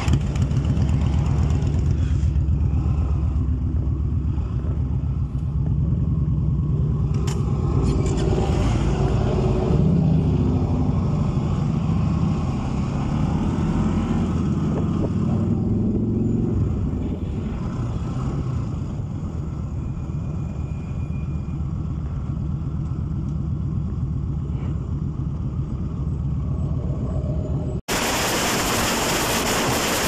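Motorcycle engines running at low speed, with a steady low engine sound and some pitched bands, loudest in the first half and a little weaker after. Near the end it cuts abruptly to a loud steady rush of wind on the microphone while riding at highway speed.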